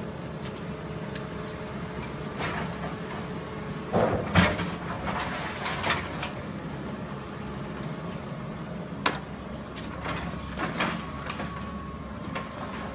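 Excavator engine running steadily while it scrapes up demolition debris, with clanks and knocks of rubble; the loudest clatter comes about four seconds in, and a sharp single knock comes about nine seconds in.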